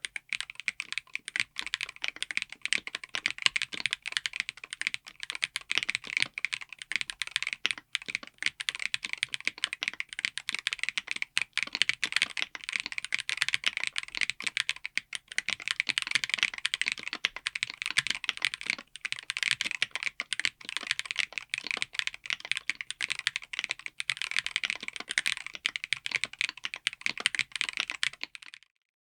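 Fast continuous typing on a keyboard fitted with Wuque Studio Flux Deep Clacky switches: a dense run of crisp, clacky keystrokes that stops shortly before the end.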